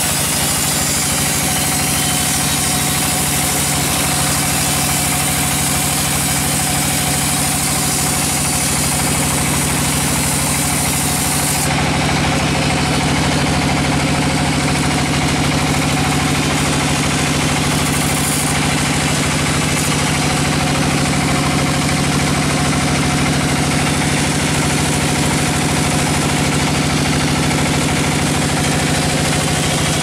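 Band sawmill running as its vertical blade saws lengthwise through a teak log: a steady machine hum with a continuous hiss of the cut over it.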